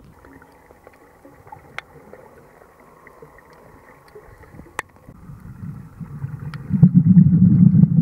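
Underwater sound: faint steady hiss and a few sharp clicks, then, from about six and a half seconds in, a loud low bubbling rumble of scuba exhalation bubbles from a diver's regulator close by.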